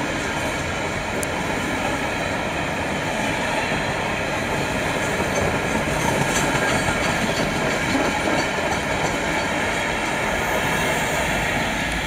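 Empty freight wagons of a coal train rolling past, with a steady clatter of steel wheels on the rails.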